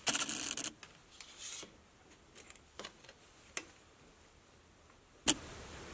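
A tape measure being handled against a stack of planed pine boards: a brief rustle of the blade, then a few sharp, isolated clicks with near silence between them.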